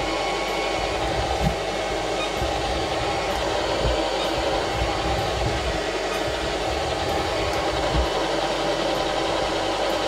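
SilverCrest robot vacuum cleaner running: a steady whir from its suction fan and spinning side brushes as it drives over the floor picking up small scattered particles, with a few soft low knocks.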